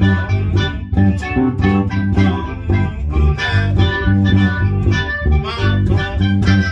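An electric bass guitar and a keyboard played together live: a rhythmic bass line of low notes under keyboard chords.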